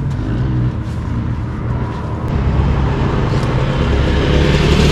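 Off-road vehicle engine running, getting louder from about two seconds in.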